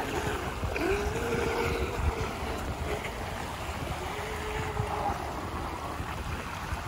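Electric RC speedboats running out across open water, their motors a faint whine that rises and falls in pitch with the throttle, over wind on the microphone and small waves washing on the shore.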